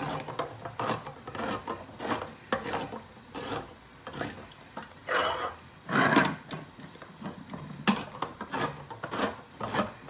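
Handheld manual can opener cutting around a tin can lid: a string of short rasping, grinding clicks as the crank is turned. About five to six seconds in there is a louder scraping clatter as a can is picked up and moved, then the cranking clicks resume.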